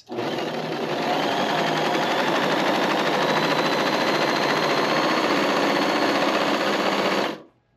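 Pfaff HobbyLock 2.5 serger (overlocker) running at speed, stitching and trimming a test seam with a steady rapid mechanical whir; it stops about seven seconds in.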